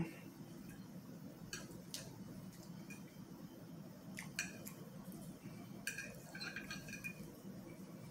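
Quiet eating sounds: a fork clicking and scraping against a plate, a handful of small separate clicks with a short clinking cluster about six seconds in, over a low steady hum.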